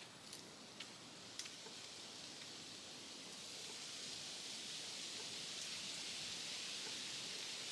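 Wind rustling through tree leaves, swelling from about three seconds in into a steady hiss, with a few faint clicks in the first second and a half.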